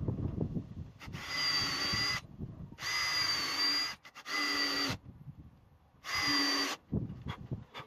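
Power drill running in four short bursts of about a second each, with a steady whine in each burst and low knocks and handling noise between them.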